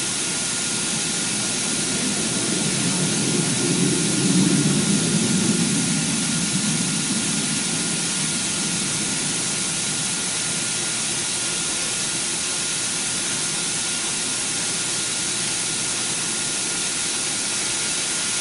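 Windstorm test rig's wind generator running at full blast, driving roughly 275 mph winds: a loud, even rush of air with a thin steady whine. A deeper rumble swells a couple of seconds in, then settles back to the steady rush.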